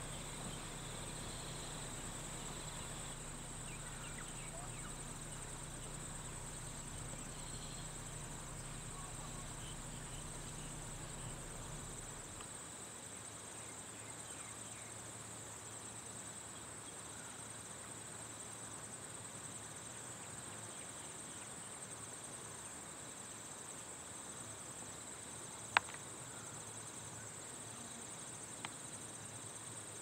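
Faint steady background with a high-pitched insect-like buzz that pulses evenly. Under it runs a low hum that drops away about twelve seconds in. A single sharp click comes about 26 seconds in.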